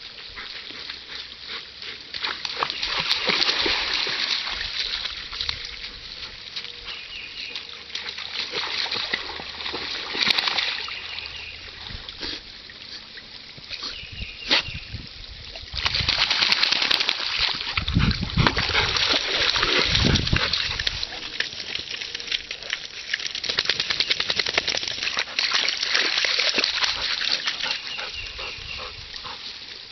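Water splashing and sloshing as a chocolate Labrador wades into a muddy pond and swims across it. The splashing comes and goes, with louder stretches in the second half.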